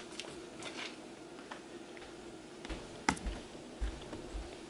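Light crinkling of a cream cheese foil wrapper being handled. Then footsteps on a kitchen floor, soft thumps about every half second, with one sharp click about three seconds in.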